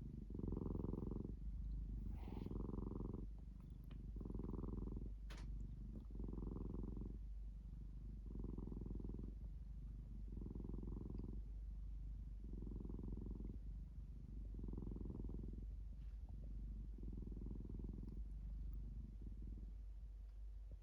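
Domestic cat purring steadily in a regular rhythm, one pulse about every two seconds.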